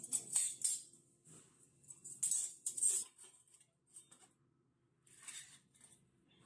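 Thin laser-cut 3 mm mild steel plates clinking and scraping against each other as they are slotted together by hand, in irregular bursts: a cluster near the start, more around two to three seconds in, and one about five seconds in.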